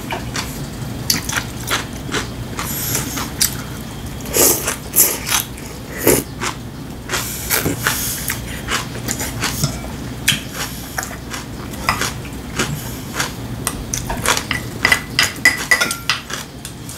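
Close-miked chewing of crunchy kimchi vegetables: irregular wet crunches and mouth sounds. Near the end come a few light clinks of wooden chopsticks against a small ceramic bowl.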